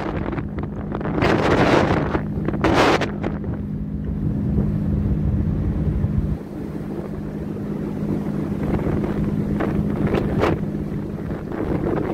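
Strong wind buffeting the microphone in gusts over the steady low hum of a ship's engine. The loudest gusts come about a second and a half in, near three seconds, and again near ten seconds.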